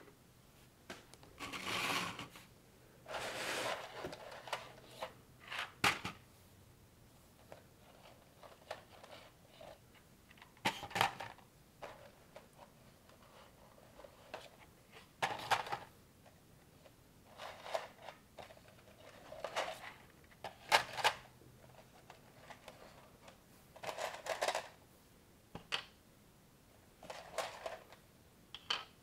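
Off-brand LEGO-compatible plastic bricks and Technic-style parts being handled: sharp clicks and snaps as pieces are pressed and fitted together every few seconds, between short bouts of rustling as loose parts are picked through. The sounds are fairly quiet and come at irregular intervals.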